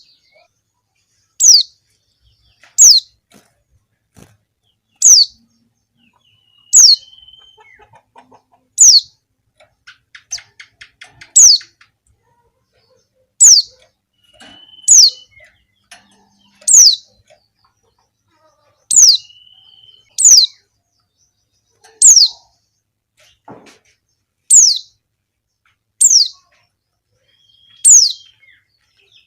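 Female white-eye (pleci) calling: a short, high note that falls sharply in pitch, repeated about every one and a half to two seconds, with a few fainter, lower chips between. It is the call of a female meant to draw and stir up males.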